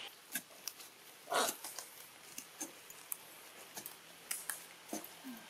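Baby macaque giving short, sharp squeaks and cries, the loudest one about a second and a half in.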